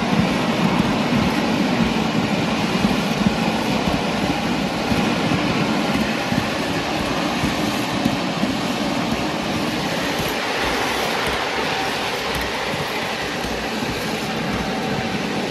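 Ride-on miniature Class 31 locomotive and its driving car running along the miniature railway track: a steady rumble and rattle of wheels on rail, with occasional louder clicks.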